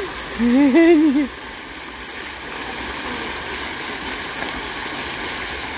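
Splash-pad fountain jets spraying up through a floor grate and falling back, a steady rush of water. About half a second in, a voice calls out loudly for about a second, wavering in pitch.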